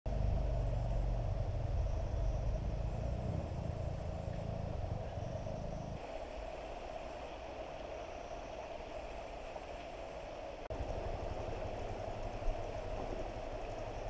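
Steady outdoor ambience: a constant even hiss with a low rumble underneath, which drops away about six seconds in and comes back near eleven seconds.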